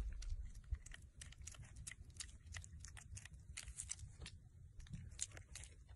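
A piglet moving about in long grass: irregular crisp crunching and crackling clicks, several a second, over a low rumble.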